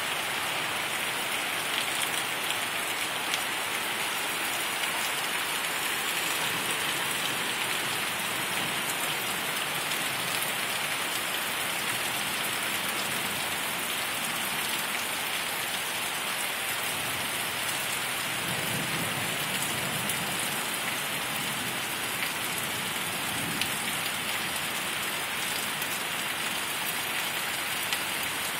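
Heavy rain falling steadily on the street and trees, with a low rumble of thunder about two-thirds of the way through.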